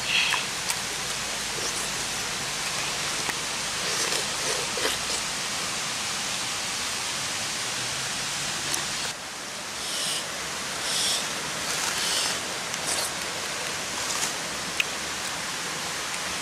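Short tearing and chewing sounds of a tangerine being peeled by hand and eaten. They come in a cluster about four seconds in and again from about ten to thirteen seconds in, over a steady even hiss of background noise.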